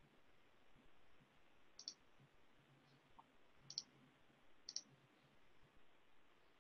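Three faint computer mouse clicks, each a quick press-and-release, spaced about a second or two apart over near silence: someone clicking through screen-share controls.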